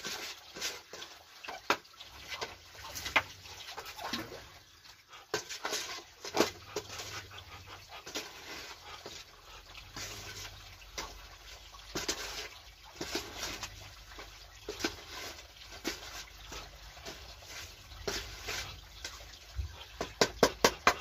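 Irregular clicks, knocks and scrapes from duck feed being mixed by hand in a container, ending in a quick run of louder knocks.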